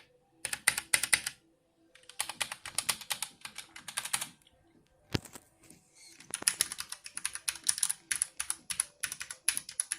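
Hator Skyfall HEX mechanical keyboard with linear Gateron Clear switches being typed on in quick runs of key clacks: three bursts of rapid keystrokes with short pauses between, and a single key tap about five seconds in.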